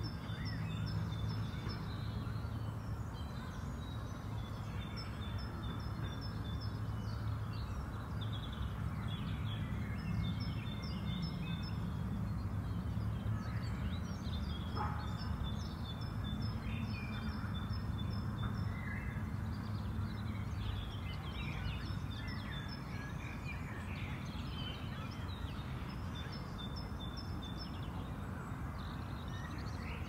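Small birds singing and calling over a steady low background rumble, with trains of short, evenly spaced high notes that come again every few seconds.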